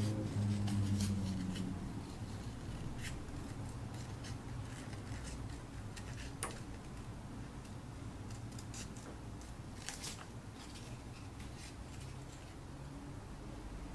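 Scissors cutting thin white card in irregular single snips, about one every second or two, over a steady low hum that is louder in the first couple of seconds.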